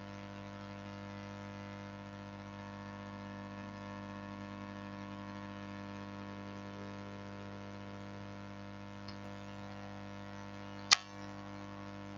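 Steady electrical mains hum with a stack of even overtones, and a single sharp click about eleven seconds in.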